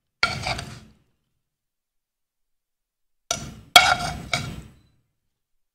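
Metal tongs clicking and knocking against a ceramic plate as chicken tikka pieces are laid onto a sandwich bun, in two short bursts, the second with one sharp knock.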